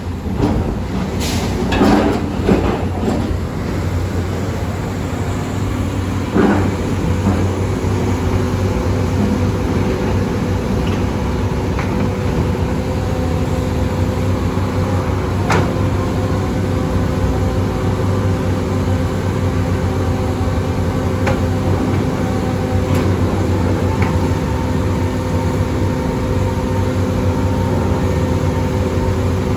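Heavy diesel construction machinery running steadily. Metallic scraping and screeching come in the first few seconds and again about six seconds in, with an occasional sharp clank later on.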